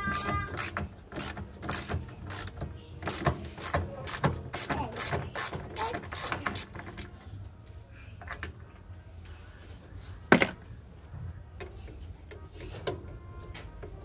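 Ratchet wrench clicking as screws are turned out of a front-loading washing machine's front panel, a fast run of even clicks for about the first seven seconds, then only scattered clicks and one sharp knock about ten seconds in, over a steady low hum.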